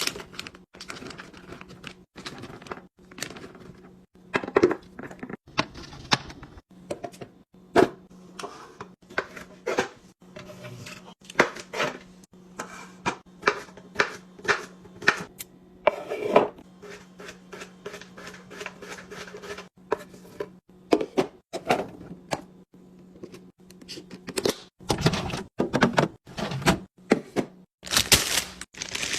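Food containers and packaging being handled and set down during restocking: a quick, uneven run of knocks, clicks and taps over a low steady hum, with longer rustling swishes near the end.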